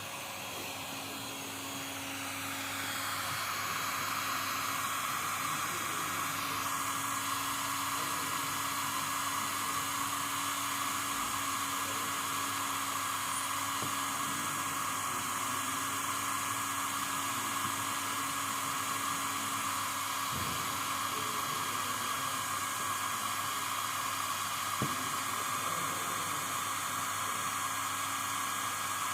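Electric hot-air blower, such as a hair dryer or heat gun, running steadily with a whooshing rush of air that builds over the first three seconds, over a faint steady motor hum.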